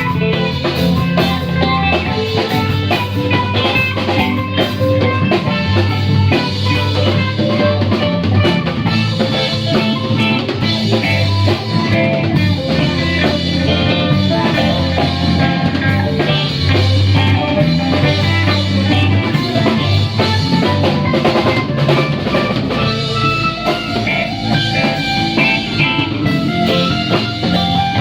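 Live rock band jamming an instrumental: guitar playing over a drum kit, with steady low bass notes underneath.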